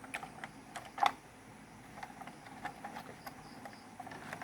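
Light, scattered clicks and taps of computer hardware being handled, as a processor and heatsink fan are picked out, with one sharper knock about a second in.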